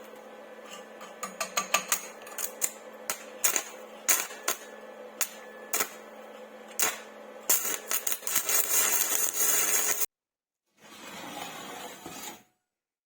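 Workshop tool work on metal parts: irregular sharp taps and clicks over a steady low hum, then a couple of seconds of continuous high grinding or scraping noise that cuts off suddenly about ten seconds in. A shorter burst of similar noise follows.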